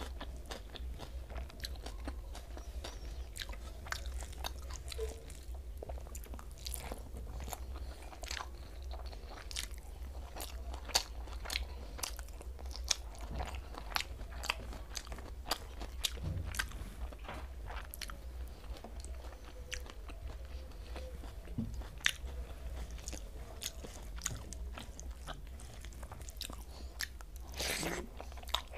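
Close-miked chewing and biting of a person eating rice, egg omelette and fried vegetables by hand, with many short sharp mouth clicks over a steady low hum, and a longer, louder mouth noise near the end.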